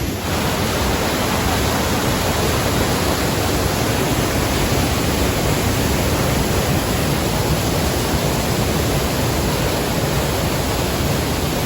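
Large waterfall heard up close: a loud, steady rush of falling water with no breaks.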